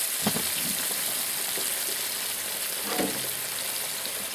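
Flour-coated chicken wings frying in a deep fryer's hot oil just after going in: a steady, vigorous sizzle that eases slightly toward the end.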